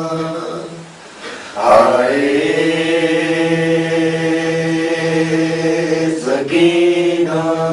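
A man's voice chanting long, steadily held notes in a lament-style recitation. There is a short break about a second and a half in and another near six and a half seconds.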